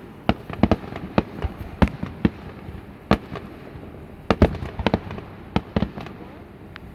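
Fireworks going off: a rapid, irregular string of sharp bangs and pops, often several a second, with a dense cluster near the middle.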